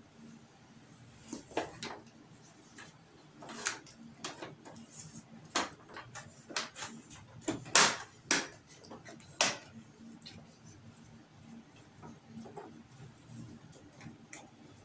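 Irregular clicks and knocks of plastic parts being handled and snapped into place on an LED TV's backlight chassis, the loudest two knocks about eight and nine and a half seconds in.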